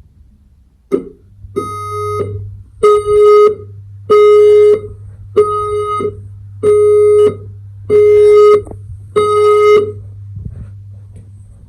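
Hotel fire alarm sounder pulsing a loud, steady-pitched electronic alert tone: about seven beeps, each roughly half a second long and a little over a second apart, set off during a detector test in walk-test mode.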